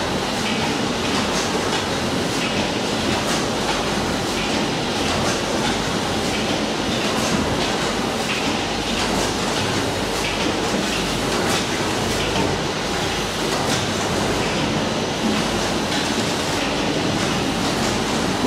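Carrot packing line running: the bagging machine and conveyors give a steady mechanical clatter, with a regular clack about once a second.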